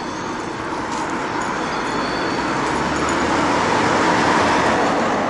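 A car driving past on the street, its tyre and engine noise growing to a peak about four seconds in and then easing.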